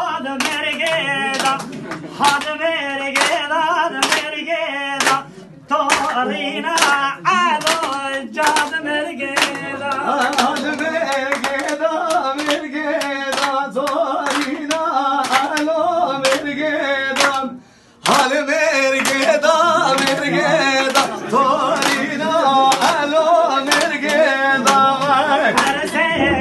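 Men singing a Kurdish folk song together in full voice, with the room clapping along on a steady beat. The singing and clapping break off briefly twice, about five and seventeen seconds in.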